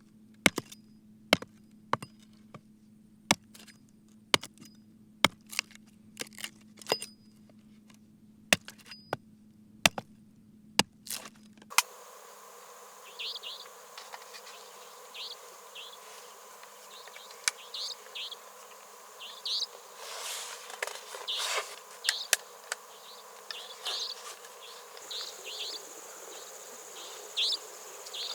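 Sharp, loud clicks or cracks, about one a second, for the first twelve seconds. They stop suddenly. Then night insects call in short, repeated high chirps over a steady high hum.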